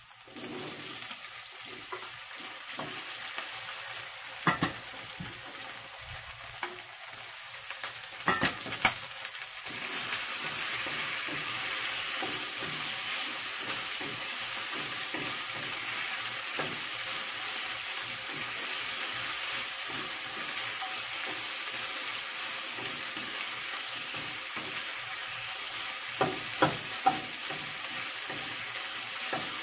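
Shrimp frying with garlic and leek in hot oil in a pan, a steady sizzle that gets louder about ten seconds in as a wooden spatula stirs them. A few sharp knocks against the pan stand out, a cluster in the first ten seconds and a few more near the end.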